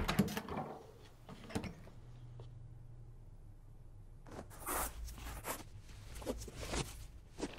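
Clothes being handled and a leather boot being laced in a small room: a series of short rustles, soft knocks and clicks.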